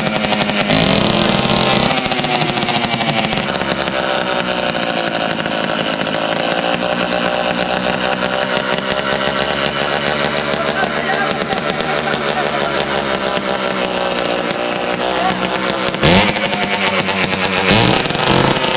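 Small 80cc two-stroke bicycle motor-kit engine running, its pitch wavering with the throttle. It revs up sharply twice near the end.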